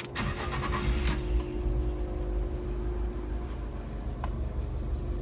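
Fiat 500's 1.4-litre engine cranking and catching at once, with a short flare for about the first second and a half, then settling into a steady idle.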